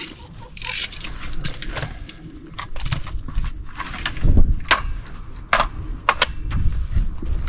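Handling sounds: a series of sharp clicks and knocks with rustling as a tape measure and a cordless circular saw are picked up and handled.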